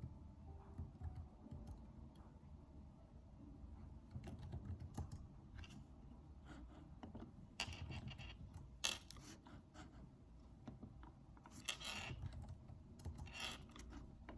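Typing on a computer keyboard: soft key clicks in short, irregular bursts with pauses between them, the densest runs just past the middle and near the end.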